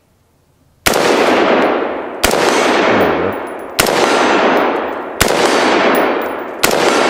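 Colt AR-15 A2 Sporter II semi-automatic rifle firing .223 rounds: five single shots about a second and a half apart, each followed by a long fading echo. The first shot comes a little under a second in.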